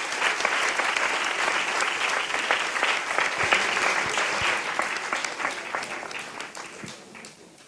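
Audience applauding, a dense patter of many hands clapping that thins out and dies away over the last couple of seconds.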